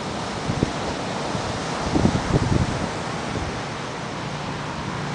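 Wind buffeting the microphone over a steady rush of surf, with a few low thumps about two seconds in.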